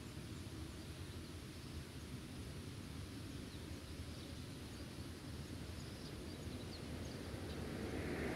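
Rural outdoor ambience: a steady low rumble of wind on the microphone with faint, scattered high chirps. Near the end a louder rumble builds as a vehicle approaches.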